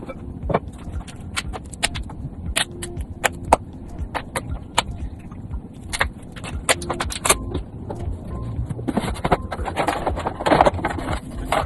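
Irregular clicks, knocks and scrapes of small hard parts being handled as an essential oil diffuser is opened and set up, busier and scrapier about nine seconds in, over a low steady rumble.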